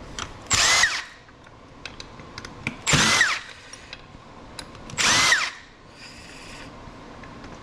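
Cordless drill briefly spinning a driver bit to back out the small screws of an electronic device, three short bursts, each whirring up and back down in pitch. Light clicks of handling between the bursts.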